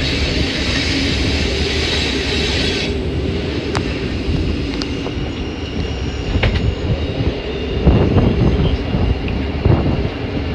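Narrow-gauge passenger train running, heard from aboard: a steady rumble of wheels on the rails with a high wheel squeal that stops about three seconds in, then a few sharp clicks and heavier knocks from the track.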